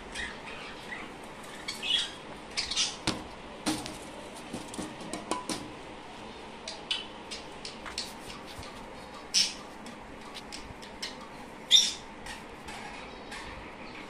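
Budgerigars in a nest box with nestlings: short harsh squawks and chirps at irregular intervals, mixed with light scratching and clicking. The loudest squawks come about two-thirds of the way through and again near the end.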